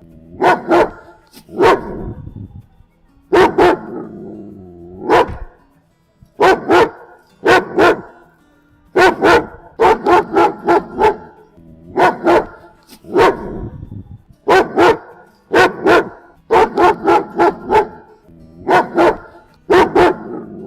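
German Shepherd dog barking loudly in quick runs of two to five barks, with short pauses between the runs.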